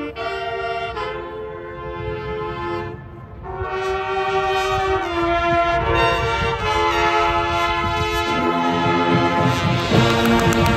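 Marching band brass section playing sustained chords that dip quiet about three seconds in, then swell louder. Near the end the chord drops lower and percussion hits come in.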